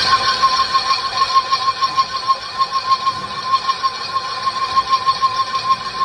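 Wood lathe turning, with a steady high-pitched whine that pulses rapidly and evenly as the turning tool cuts the spinning wood.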